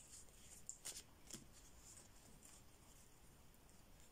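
Faint rustling and soft flicks of tarot cards being handled, a few light ticks in the first second and a half, then near silence.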